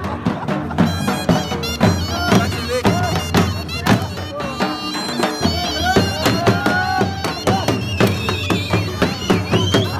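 Live Pashtun attan music: a dhol beaten in a fast, steady rhythm under a reedy, bagpipe-like surnai playing a wavering melody, with people clapping along.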